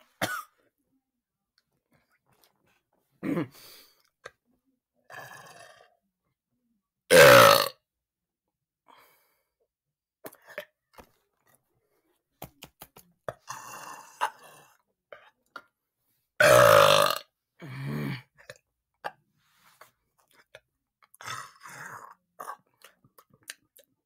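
A teenage boy's deliberate, forced burps: two long, loud burps about seven and sixteen seconds in, with shorter, quieter ones and small mouth clicks between them.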